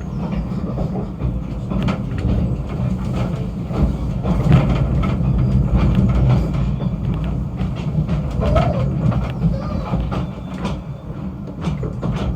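Snowdon Mountain Railway train running: a steady low rumble with rattling and frequent clicks and knocks.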